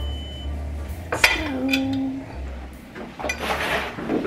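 Dishes and cutlery clinking as a plate of food is handled at a table, with a sharp clink about a second in, then a short low drawn-out tone, and a rustle near the end.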